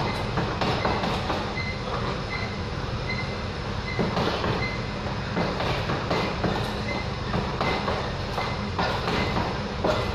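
Gloved punches landing on a hanging Everlast heavy bag in quick, irregular combinations, over a steady low rumble.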